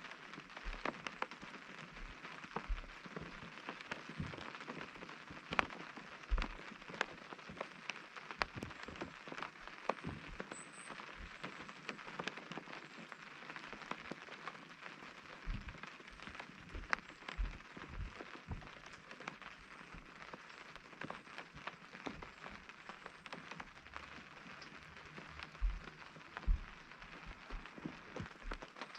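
Rain pattering on tent fabric: a steady hiss of fine drops with many irregular sharper drop strikes and occasional heavier thuds.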